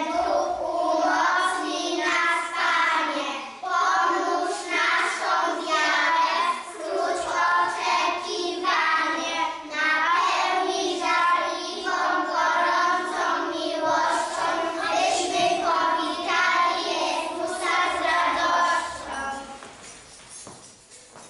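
A group of young children singing a song together; the singing stops shortly before the end.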